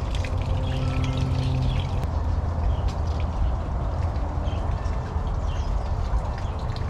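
Small garden fountain trickling steadily into its stone basin.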